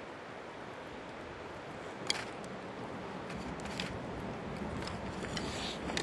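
Steady rush of flowing river water, with a few sharp clicks and snaps on top, the loudest about two seconds in.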